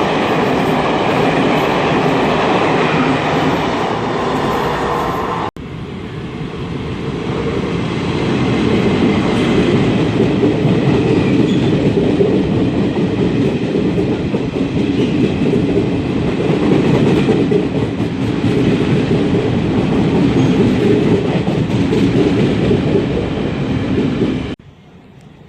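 Train running on the rails, a loud steady rumble of wheels and track, with an abrupt break about five seconds in and a sudden drop in loudness near the end.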